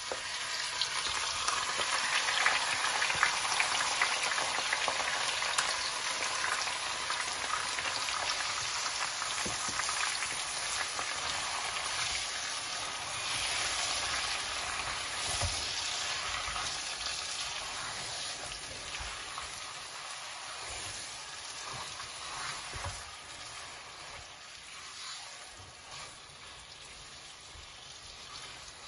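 Marinated chicken pieces sizzling as they hit hot oil in a pot and are stirred with a spoon: a dense crackling sizzle that is loudest in the first few seconds and slowly dies down, with a few knocks of the spoon against the pot.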